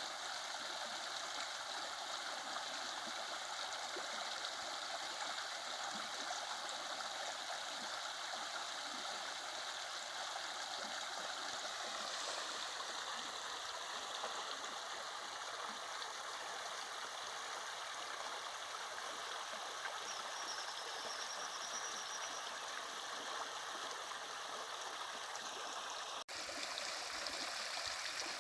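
Running water flowing steadily, an even rushing with little low rumble, as of a stream. It cuts out for an instant near the end.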